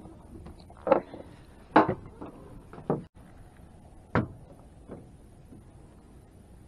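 Handling knocks and clunks in a fishing boat as a live shad is rebaited: about six short knocks over the first five seconds, the first two the loudest.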